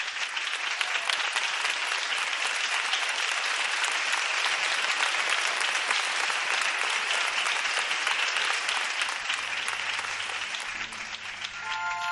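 Audience applauding steadily, dying away near the end as soft music with sustained tones comes in.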